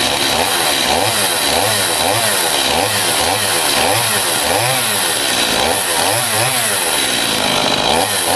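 Stihl chainsaw's two-stroke engine running, its speed rising and falling in an even rhythm about twice a second.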